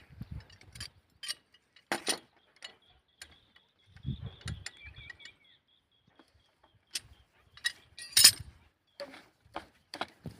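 Irregular mechanical clicks and knocks, the loudest about eight seconds in, with a faint thin high whine for a few seconds in the middle.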